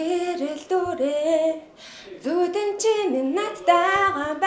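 A young woman singing a slow melody solo in long held notes, with a brief pause for breath about two seconds in.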